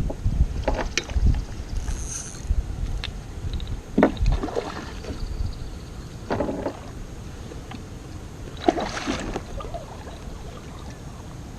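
Sounds from a kayak during a fight with a hooked catfish: a handful of short splashes and knocks against the boat, scattered a few seconds apart.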